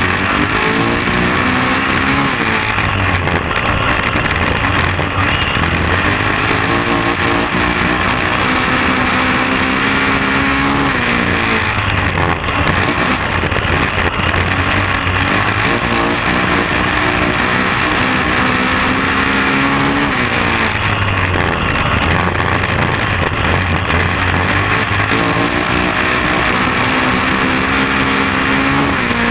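Speedway race car engine heard from inside the cockpit over a loud, constant roar, climbing in pitch under full throttle down each straight and dropping as the driver backs off for the turns, about every nine seconds.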